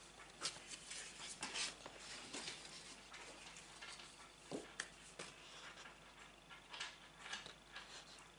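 Faint rustling and scattered light taps of sheets of satin-matte paper and card being lifted and handled in a cardboard box.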